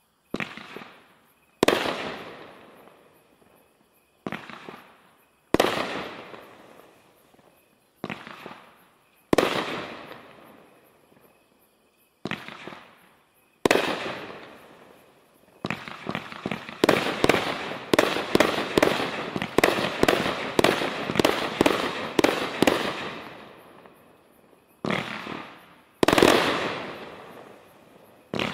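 Brothers Fireworks 'Global Warmer' 24-shot 500-gram cake firing. Single sharp bangs that die away come every second or two, then a rapid volley of many shots for about seven seconds in the middle, then a few more single bangs near the end.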